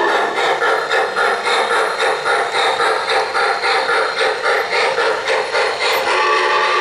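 Onboard sound system of an MTH O-gauge Santa Fe 2-10-4 Texas steam locomotive model playing a steady rhythm of steam chuffs, about three a second, as the train runs. A steady whistle starts sounding about six seconds in.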